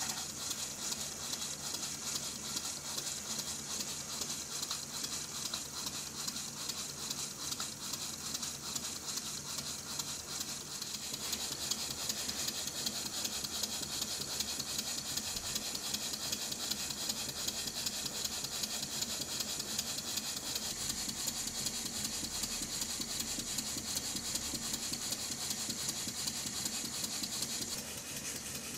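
Restored Stuart model beam engine running smoothly on compressed air, giving a fast, even exhaust beat at both ends of the stroke. The sound changes slightly about a third of the way in and again near the end.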